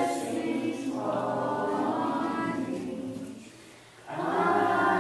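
A church congregation singing a hymn together, many voices holding long notes, with a brief break between lines about three and a half seconds in before the singing starts again.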